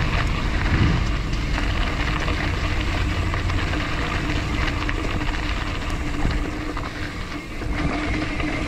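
Wind rumble on an action camera's microphone, with road and tyre noise and small rattles, while riding a bicycle downhill. The low rumble eases somewhat past the middle.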